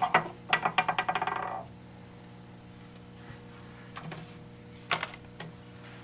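A quick run of metallic clicks, about ten a second for about a second, as the fire alarm equipment is reset, followed by a low steady hum with a couple of faint clicks.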